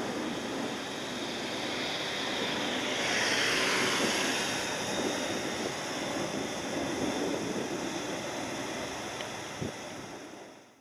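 Boeing 787 airliner on approach with its landing gear down, heard from the ground: a steady jet engine noise that swells about three seconds in, with a whine gliding down in pitch, then fades out near the end.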